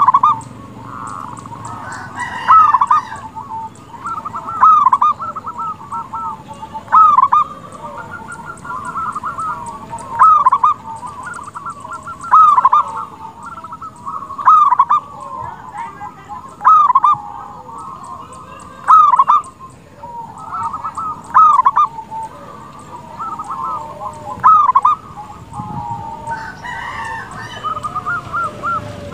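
Zebra dove (perkutut) singing: a run of quick soft cooing notes that ends in a louder coo, the phrase repeated about every two seconds.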